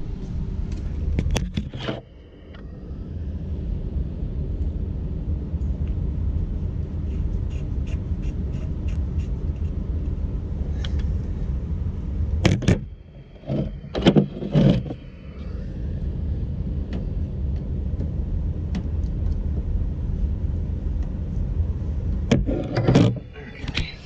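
Clicks and knocks of a tankless water heater's inlet filter screen being handled and fitted back into its housing, a few sharp ones about a second in, a cluster about halfway, and more near the end, over a steady low hum.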